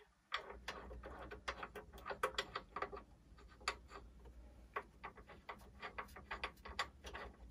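Light, irregular clicking and ticking of metal mounting screws being turned by hand through the tripod head into the base of a telescope mount, thicker in the first few seconds and sparser after.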